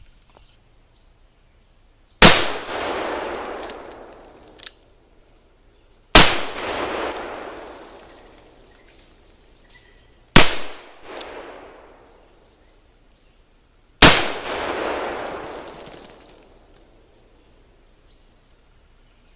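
Four shots from a black-powder cap-and-ball revolver, about four seconds apart, each followed by a long echo that dies away over a couple of seconds.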